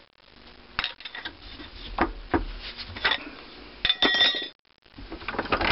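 Scattered metal clinks and knocks as a bench vise is worked and small steel parts are handled, with a short ringing clink about four seconds in.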